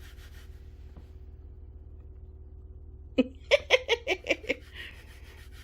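A person giggling: a quick run of about six short laughs, about three seconds in.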